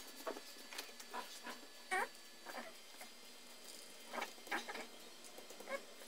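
Short animal calls: one about two seconds in and a couple more around four to four and a half seconds, with faint scattered clicks between them.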